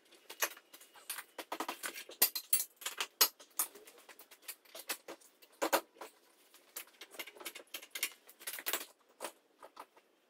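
Quick, irregular clicks and light knocks, with louder strikes around two, three and a half and nine seconds in, from hands-on work at the raised buggy's wheels.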